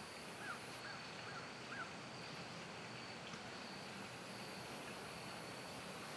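Faint outdoor ambience: wind hissing steadily, with a thin high steady tone behind it. Four short bird chirps come in quick succession in the first two seconds.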